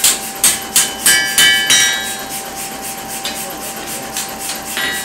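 Blacksmith's hand hammer striking sheet metal on an anvil. A quick run of blows comes about three a second, several with a bright metallic ring after them. After about two seconds the strikes become lighter and sparser taps.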